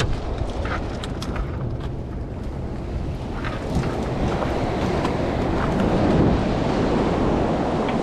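Wind buffeting the microphone over the wash of sea water, with scattered small ticks and rustles of a nylon trammel net being handled as a fish is worked free of the mesh.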